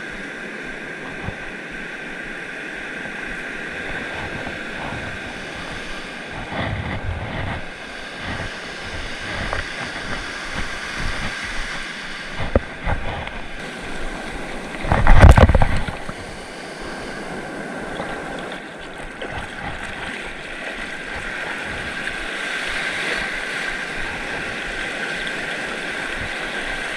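Ocean surf washing and breaking, with wind on the microphone. About halfway through comes one much louder rush lasting about a second.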